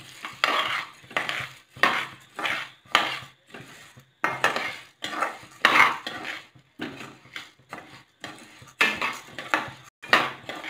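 Dry urad dal and chana dal being stirred and scraped around a metal kadai with a spatula as they roast, rasping strokes about twice a second, the lentils rattling against the pan. The dal is being dry-roasted until golden brown.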